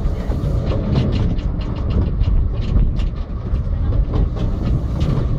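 Miniature ride-on railway carriage running along the track: a steady low rumble with frequent, irregular sharp clicks.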